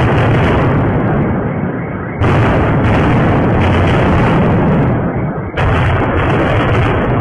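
Missile strike explosions heard through a surveillance camera's microphone: a loud, continuous, deep blast noise, jumping louder about two seconds in and again about five and a half seconds in.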